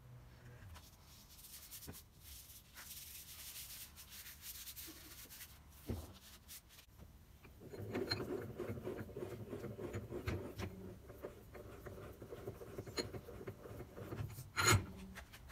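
Hand handling of a restored Wilton bullet vise: light rubbing against the cast body at first, then the handle is turned and the screw and sliding jaw run with a steady scraping, ticking metal rub. A single sharp metal clank comes near the end.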